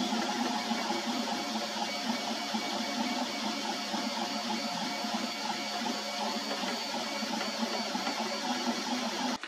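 Ortur 4 FDM 3D printer running a print: a steady mechanical whir from its stepper motors and fans as the print head moves over the cube, ending abruptly near the end.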